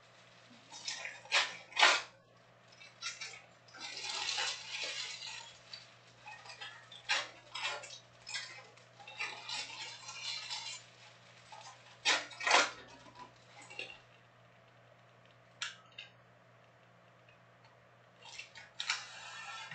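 Foil trading-card packs being shuffled and handled, crinkling and rustling in irregular bursts, with sharp taps and clacks as packs are knocked together and set down in stacks on the table.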